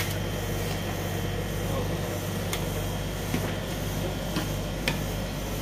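Metal spatula scraping across and tapping on a steel rolled-ice-cream cold plate as the blueberry ice cream mixture is spread flat, with a few sharp clicks. Under it runs a steady low machine hum.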